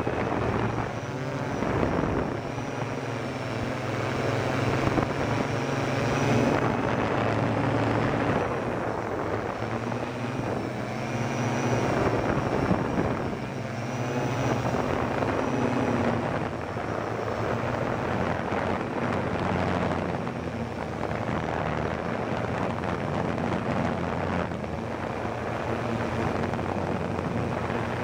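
Quadcopter's electric motors and propellers buzzing steadily in flight, heard from a camera mounted on the craft itself; the pitch drifts up and down as the motor speeds change.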